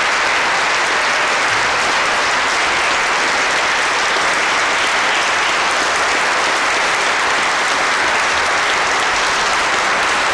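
A large audience applauding steadily, a dense even clatter of many hands clapping with the echo of a church interior.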